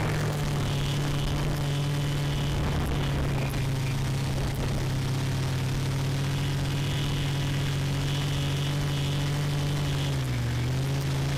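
Quadcopter's electric motors and propellers humming steadily, heard close up from the camera on board. The pitch dips briefly about ten seconds in and then comes back up.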